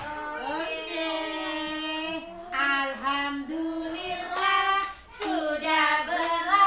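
Young children singing a song, with sustained sung notes that rise and fall in pitch.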